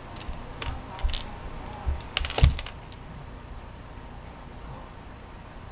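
Light taps and clicks of a baby's hands on the surface he is picking Cheerios up from, a few scattered ones and then a quick cluster about two seconds in with one louder knock.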